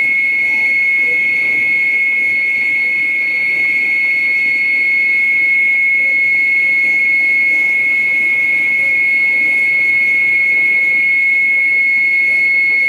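A steady high-pitched whine holding one unchanging pitch, over a faint low background noise.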